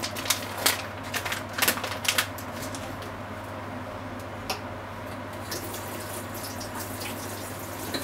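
Ground pork sizzling and bubbling in its juices in a frying pan, with a quick run of sharp pops and spatters in the first couple of seconds, then a steady hiss with only an occasional pop, over a steady low hum.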